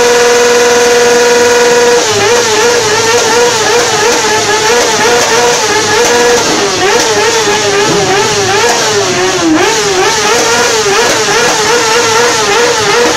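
Sport motorcycle engine held at high revs at a steady pitch, then, about two seconds in, revved rapidly up and down with the throttle so the pitch wavers continuously.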